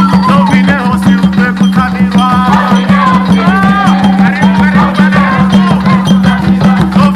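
A group of women singing a traditional song together, with a quick steady beat of shakers and percussion over a steady low hum.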